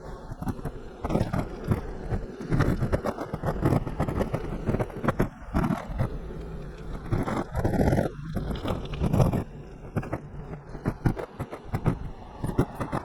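BMX bike being ridden, heard through a camera clipped onto the rider: irregular knocks, rattles and scraping over a rushing noise.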